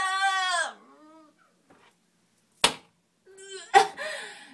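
A woman's sneezing fit: a long, high pre-sneeze 'ahh' falls away and breaks off, then a sharp sneeze comes about two and a half seconds in. A second short 'ah' and sneeze follow near the end.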